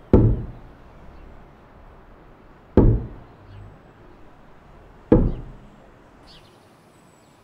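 Three dull thuds, evenly spaced about two and a half seconds apart, each with a sharp start and a short fading tail.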